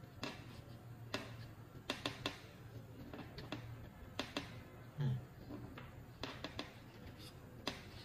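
Scattered small clicks and taps as fingers handle a plastic fiber optic fast connector and press its retainer into place, over a steady low hum. A brief low sound about five seconds in is the loudest moment.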